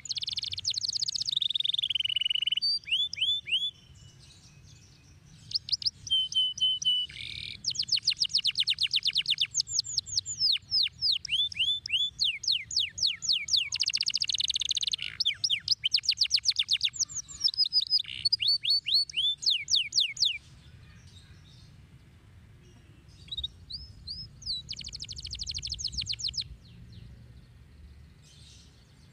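A domestic canary singing in fast trills of quick, repeated, falling notes, strung into long phrases. The song breaks off for a few seconds about two-thirds of the way through, then resumes in shorter phrases.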